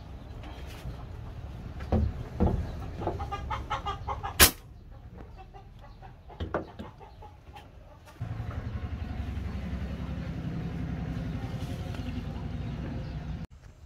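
Hard plastic PVC pipe parts being handled, with clicks and knocks and one sharp, loud snap about four and a half seconds in. Then a steady low rumble for about five seconds, cut off sharply near the end.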